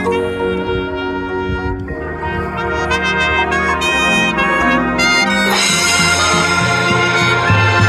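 High school marching band brass playing held chords that move in steps. About five and a half seconds in, the full band comes in louder.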